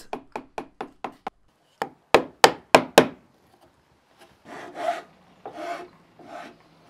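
Hand tools cutting a hinge recess into the edge of an MDF board: a run of light quick taps, then five sharp strikes of a tool on the chisel, followed by four rasping strokes of a file along the edge.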